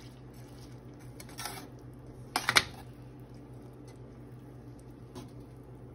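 A metal spoon stirring soaked basmati rice into a pot of boiling liquid: wet stirring with a few clinks and scrapes of the spoon against the pot. The loudest clatter comes about two and a half seconds in.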